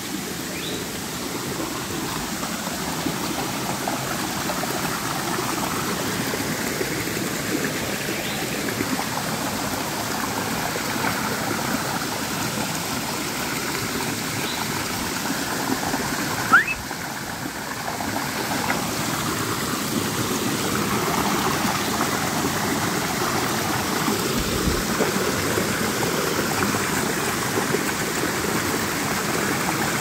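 Steady rush of a muddy creek running high after rain, pouring over and between boulders, with one sharp knock about halfway through.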